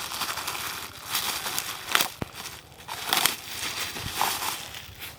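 Packaging being handled during an unboxing: crinkling and rustling in several bursts, with a couple of sharp knocks.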